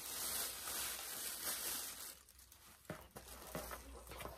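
A thin plastic shopping bag rustling and crinkling loudly for about two seconds as a boxed doll is pulled out of it, then a few light knocks of the cardboard box being handled.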